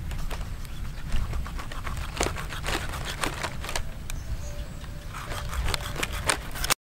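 Knife work on a raw stingray: short clicks and crackles as the blade cuts into the skin and flesh and the dry palm fronds beneath are shifted, coming in clusters, over a steady low rumble.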